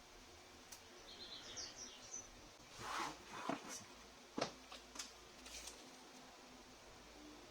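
Faint bird chirps, followed by a handful of light, sharp knocks and clicks spaced irregularly over a few seconds.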